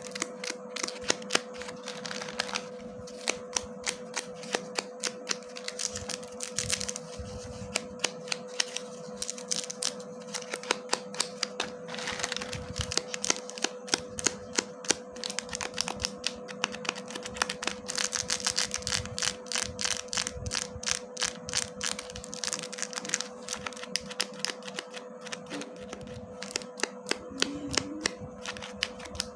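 Slime being pressed and squished by hand, giving rapid, irregular crisp pops and clicks from trapped air and sticky contact.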